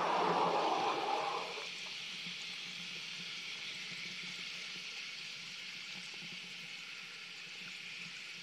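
Hot tub jets churning and bubbling the water. The loud rush drops away abruptly about a second and a half in, leaving a steady softer hiss with a faint low hum.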